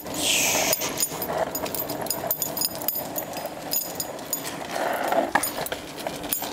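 Dog moving along pavement on a leash: many quick clicks and light metallic jingles in an uneven rhythm over a steady rushing noise, with a brief hiss right at the start.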